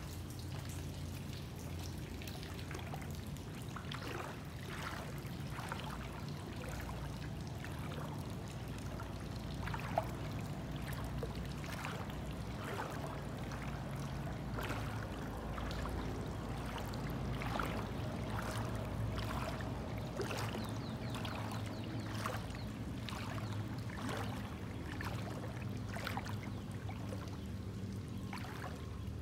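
Floodwater splashing and trickling in irregular small spurts, over a steady low rumble.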